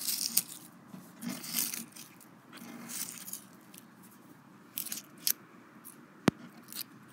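Dry fallen leaves crunching and crackling as fingers crumble them against wooden deck boards, in several short bursts. A single sharp click about six seconds in.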